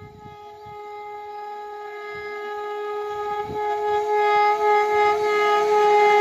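Horn of an Indian Railways WAP-7 electric locomotive sounding one long steady note as the train approaches, the horn and the rising rumble of the train on the track growing steadily louder.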